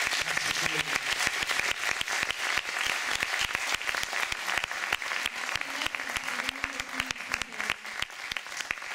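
Audience applause: dense, loud clapping that starts up right after a speech ends and thins out gradually toward the end.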